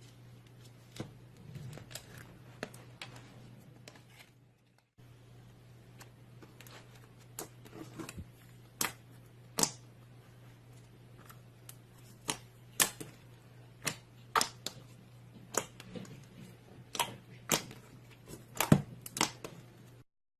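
Slime being squeezed and pressed by hand, giving a run of sharp, irregular clicks and pops that grow louder and more frequent partway through.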